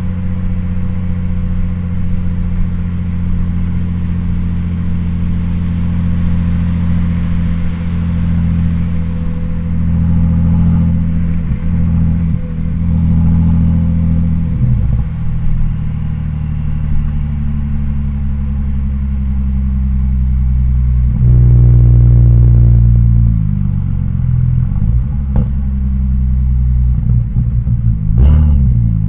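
Modified twin-turbo V6 of an Audi S4 B5 cruising at low revs, its note rising and falling with the throttle. It pulls louder for a couple of seconds about two-thirds of the way through, and there is one short burst of noise near the end.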